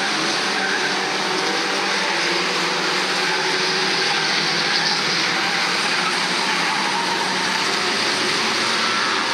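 A pack of old saloon race cars' engines running together as they lap an oval track, blending into one loud, steady mass of engine noise.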